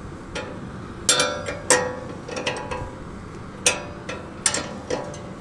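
Steel spanners clinking on a bolt and its lock nut as the nut is tightened: a scattered series of sharp metallic clinks, each ringing briefly.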